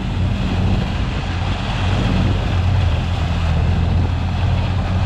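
ATV engine running hard at steady revs while its tyres spin in deep mud, flinging it up, with the quad stuck in the hole.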